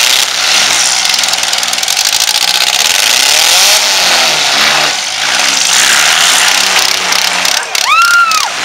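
Several four-cylinder compact demolition derby cars running at high throttle with their wheels spinning in the dirt, a loud, continuous mass of engine noise. A brief high squeal rises and falls near the end.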